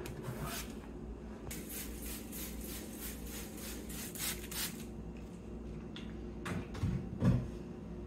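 Hand-held plastic trigger spray bottle spritzing a water-and-vinegar cleaning mix onto a refrigerator front: about ten quick squirts in a row, roughly three a second. A few dull knocks follow near the end.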